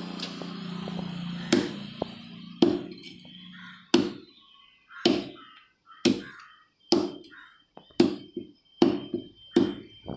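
Large knife chopping pangasius (basa catfish) fillet into pieces on a wooden log chopping block: about nine sharp thuds, one roughly every second, starting about a second and a half in.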